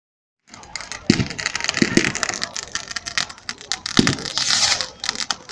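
Fireworks going off: dense crackling starting about half a second in, with louder bangs about a second in, twice near two seconds and at four seconds, and a brief hiss just after the last bang.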